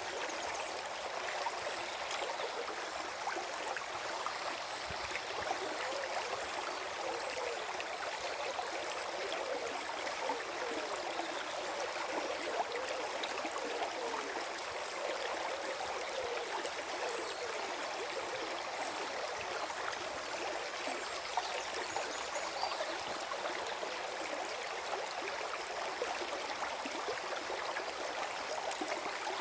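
Forest stream gurgling and trickling over stones, a steady flow of water with small bubbling gurgles.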